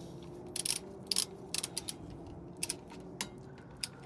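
Ratcheting torque wrench on the 24 mm driveshaft flange stake nut, a series of sharp, irregular clicks as it is worked in short strokes while the nut is torqued to 51 ft-lbs.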